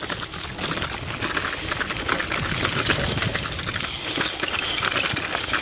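Mountain bike rolling over a loose gravel dirt track: a dense, even rattle and crunch of tyres on stones and the bike jolting over them.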